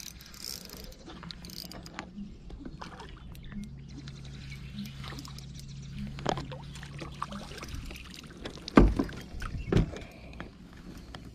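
Spinning reel being cranked as a fish is reeled in: a low steady hum with light clicking. Two loud thumps come about nine and ten seconds in.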